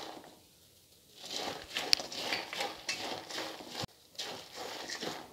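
Spatula stirring puffed rice, roasted gram and peanuts in a steel pan: a dry rustle with scattered clicks and scrapes against the metal. It starts about a second in and breaks off briefly near the middle.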